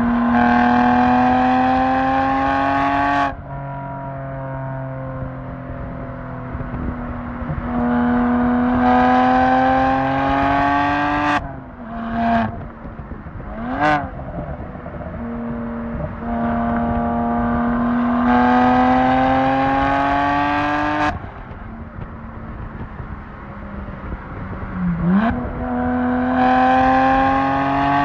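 BMW 1M Coupe's twin-turbo N54 straight-six through a full Akrapovic titanium exhaust, pulling hard under load with its pitch climbing steadily. It drops away sharply as the throttle is lifted, three times, with a fourth pull starting near the end. Between the pulls come short, quick throttle blips.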